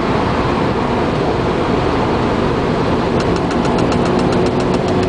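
Car engine idling cold, with a fast, light ticking that sets in about three seconds in, roughly seven ticks a second. The owner now thinks the tick comes from the interior ventilation fan or heating system.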